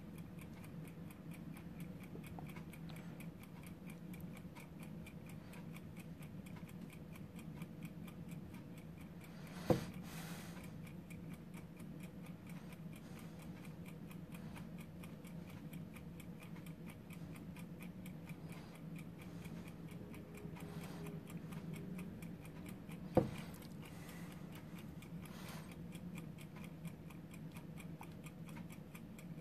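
A mechanical countdown timer ticking steadily and quickly, faint over a low room hum. Two brief knocks stand out, one about ten seconds in and one about two-thirds of the way through.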